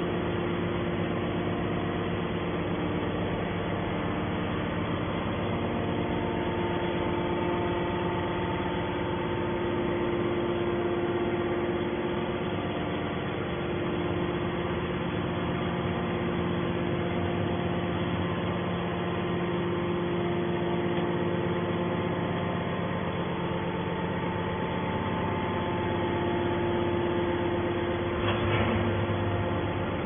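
Y81/T-4000 hydraulic metal baler running, its hydraulic pump unit giving a steady hum made of several held tones.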